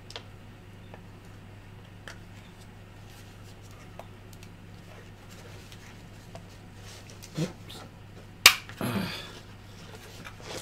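Handling noise from a Rode VideoMic shotgun microphone being turned over in the hands: small, sparse plastic clicks and taps from its shock mount and body. One sharp click about eight and a half seconds in, the loudest sound, is followed by a brief rustle. A faint steady hum runs underneath.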